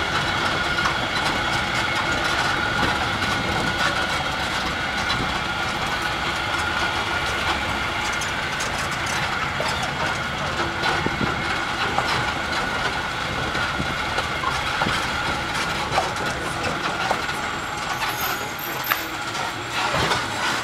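Open-air resort tram running along paved paths: the vehicle's steady drone with a high steady tone over it, plus scattered rattles and knocks.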